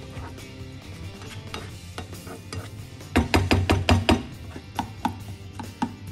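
Slotted spatula scraping and knocking against a non-stick frying pan while stirring diced potatoes and mushrooms in a cream sauce. A quick run of about eight knocks comes a little after three seconds in.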